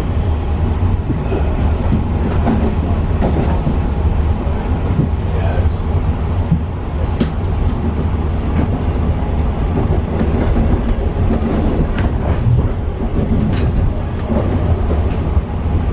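Long Island Rail Road commuter train running, heard from inside the car: a steady low rumble with a few sharp clicks from the track.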